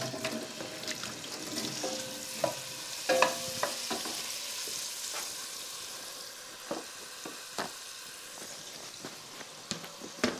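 Chunks of beef sizzling steadily as they sear in hot butter and oil in a pot, with a wooden spoon knocking and scraping against the pot now and then, loudest just at the start and about three seconds in.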